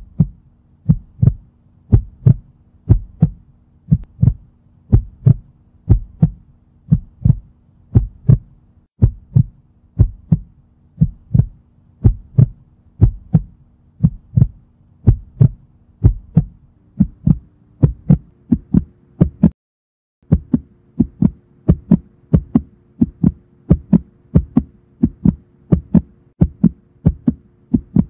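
Heartbeat sound effect: regular, steady thumps over a low, steady drone. The drone steps up in pitch about two-thirds of the way through, and both cut out briefly about twenty seconds in before carrying on.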